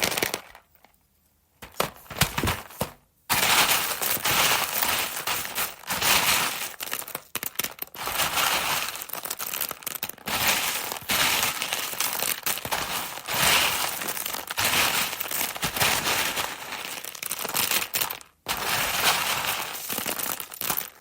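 Dry textured vegetable protein (TVP) being handled, giving a dense run of small crunches and crackles. There is a short pause about a second in, another around three seconds, and one more near the end.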